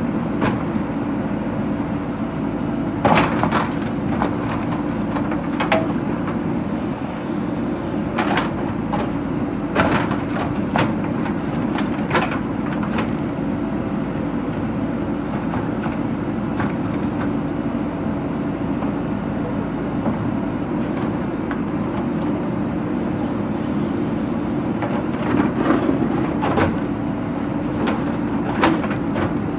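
JCB backhoe loader's diesel engine running steadily under load, with a scatter of sharp knocks as it breaks up brick and stone.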